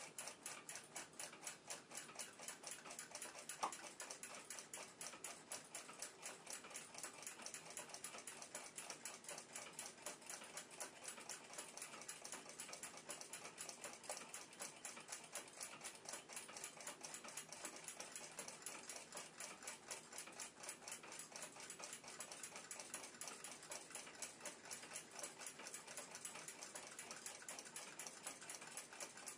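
Faint clock ticking: a rapid, even run of small mechanical ticks, with a single louder click about three and a half seconds in.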